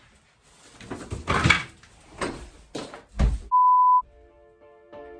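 A single steady beep, the flat pure tone of a censor bleep, about half a second long, a little past three and a half seconds in and the loudest sound here. Before it come several loud, noisy bursts over music, and after it sustained music notes hold steady.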